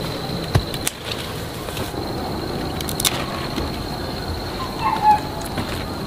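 Chayote vines being handled: a few light clicks and rustles as the fruit is gripped and pulled on its stems. Underneath runs a steady outdoor background with a thin, steady high tone, and a short bird chirp about five seconds in.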